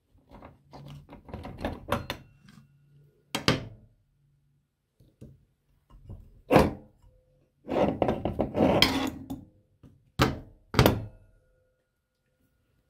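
Hand-cranked metal meat grinder being taken apart: a series of metal clinks and knocks as its parts are loosened and pulled off, a longer rattling scrape a little past the middle, and two sharp knocks near the end.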